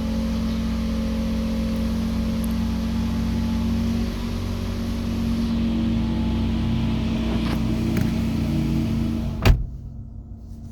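Toyota Raize engine idling at low RPM on a cold start, with a steady low buzzing hum that the owner puts down to the bonnet vibrating. A single sharp knock comes near the end, and the sound is quieter after it.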